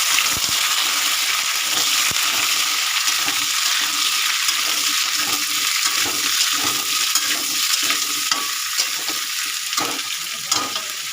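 Cut potatoes and papaya frying in hot oil in a pan, a steady loud sizzle, with a spatula knocking and scraping in the pan now and then, more often in the second half. The sizzle eases a little near the end.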